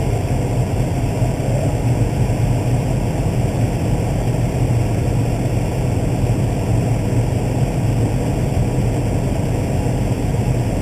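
Case IH Magnum 305 tractor's six-cylinder diesel engine running under load at a steady pitch, a constant low drone heard from inside the cab.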